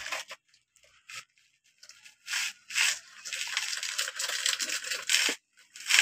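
Sandy soil scooped by hand and poured into a plastic toy dump truck's bed, making a gritty scraping and pouring sound: one short burst about a second in, then steadily from about two seconds in until just before the end.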